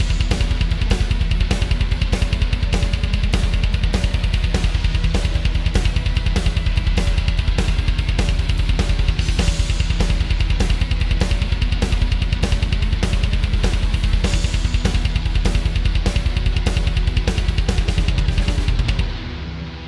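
Music led by a drum kit, with bass drum, snare and cymbals playing a fast, steady beat over pitched notes. It cuts off suddenly near the end.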